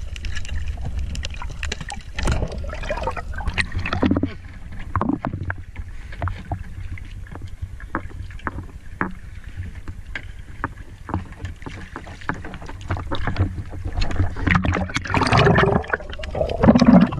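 Water sloshing and splashing around a person wading and snorkeling, with a steady low rumble and many scattered small clicks and knocks; it grows louder and busier near the end.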